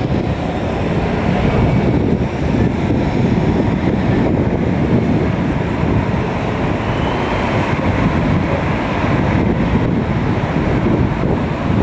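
City road traffic: cars driving through a junction, a steady rumble of engines and tyres.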